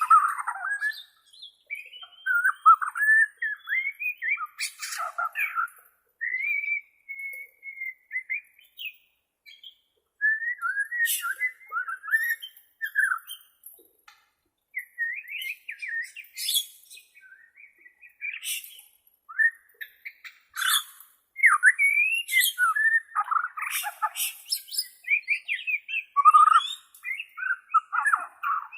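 Bornean white-rumped shama (murai batu Borneo) singing: a varied run of whistled, warbling phrases and sharp chattering notes, broken by short pauses between phrases.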